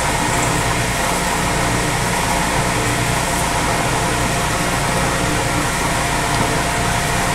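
Milling machine running at a steady hum with a few faint constant tones, the spindle turning for drilling a tap hole with a number 7 drill.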